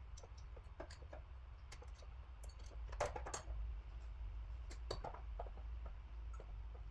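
Scattered light metallic clicks and taps of hand tools and engine parts being handled, a small cluster about three seconds in and another about five seconds in, over a low steady hum.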